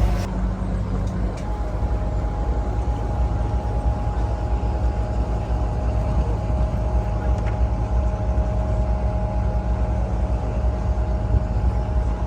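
Tour boat's engine running steadily while cruising: a continuous low rumble with a faint steady hum over it.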